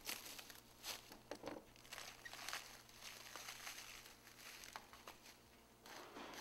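Near silence: faint scattered clicks and rustles over a low hum.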